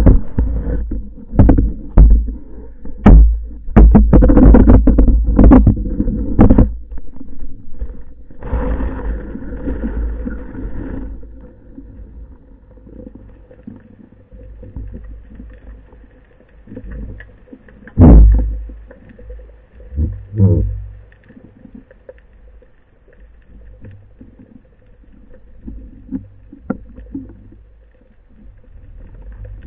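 Underwater knocks and bumps picked up by a speargun-mounted camera: a run of heavy knocks over the first seven seconds, a burst of rushing noise, then two more heavy thumps past the middle, over a low rumble of moving water.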